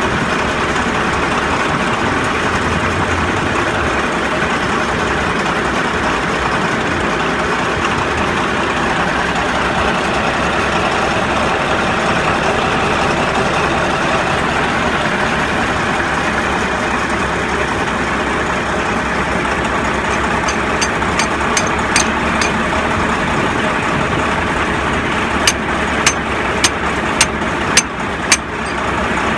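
Bulldozer diesel engine running steadily. Near the end come a handful of sharp knocks, about half a second apart.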